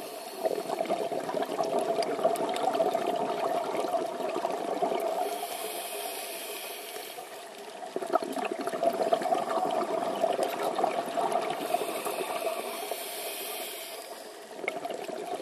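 A scuba diver breathing through a regulator underwater: two long exhalations of bubbling and crackling, each followed by a hissing inhalation, with a third exhalation beginning near the end.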